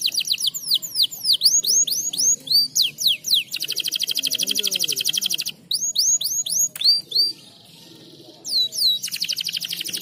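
Domestic canary singing in breeding condition: fast rolling trills alternating with runs of quick falling whistled notes. The song breaks off for about a second two-thirds of the way in, then the trills resume.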